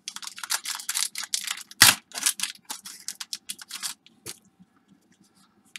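Foil trading-card pack wrapper being torn open and crinkled by hand: a fast run of crackles, with one sharper, louder crack about two seconds in, thinning out to a few ticks by about four seconds.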